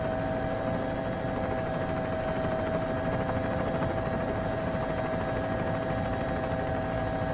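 Helicopter overhead, its turbine whine held steady over a fast rotor chop, with no rise or fall in pitch.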